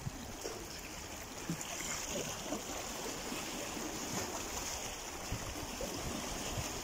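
Small sea waves washing and splashing against the concrete blocks of a breakwater, a steady water hiss.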